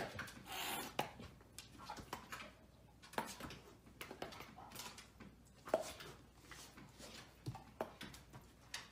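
Faint short sounds from a dog nosing at a cat, with scattered light taps and clicks and one brief rushing noise less than a second in.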